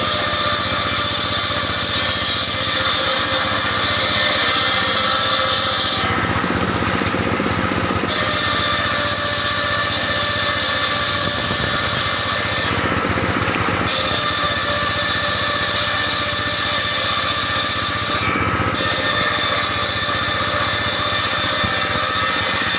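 Circular saw machine running steadily and ripping timber into roof battens, its high cutting hiss dropping away briefly three times between cuts.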